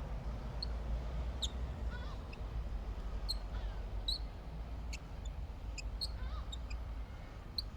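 Birds calling: scattered short, high chirps and a few brief falling calls, over a steady low background rumble.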